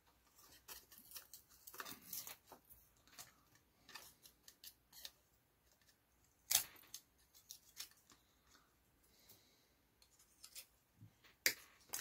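Faint scattered clicks and snips of small metal parts being worked with hand cutters on a hair dryer's heating element frame, with a louder snap about six and a half seconds in and another near the end.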